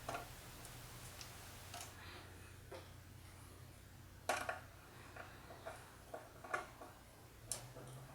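Faint, irregular small clicks and taps of a #1 Phillips screwdriver and small screws as the outer mounting screws come out of the bottom of an Eventide H9 pedal, the loudest about four seconds in. A low steady hum sits underneath.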